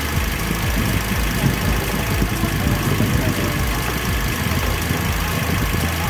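Toyota Rush engine idling steadily, heard up close from the open engine bay.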